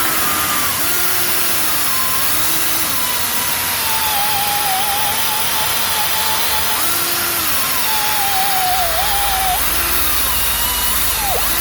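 Power tool spinning a gasket-cleaning disc against the grooves where the brake pad shims sit, scrubbing them clean; its whine sags and recovers in pitch as it is pressed on and eased off.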